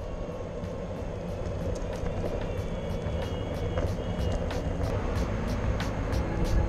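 Steady rumbling noise of riding along a paved path, wheels rolling and wind, slowly growing louder, with faint regular ticks running through it.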